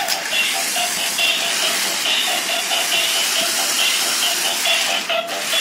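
Battery-powered RC stunt car's electric motors and roller wheels whirring over a tile floor: a steady hiss with a whine that wavers in pitch as the car speeds up and turns.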